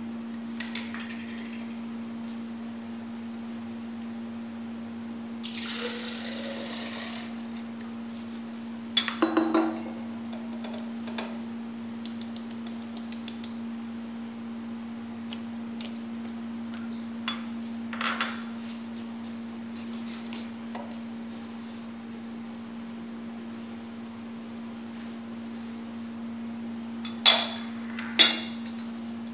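Ingredients being poured into a glass blender jar: a short pour about six seconds in, then a few sharp clinks of glass bowls and the jar, the loudest two near the end. A steady high whine and low hum run underneath.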